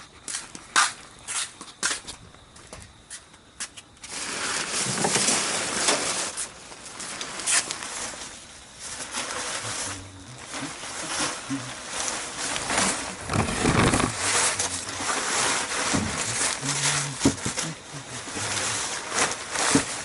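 Typhoon wind: scattered clicks and knocks at first, then from about four seconds in a loud gusting rush that swells and eases, with knocks and rattles through it.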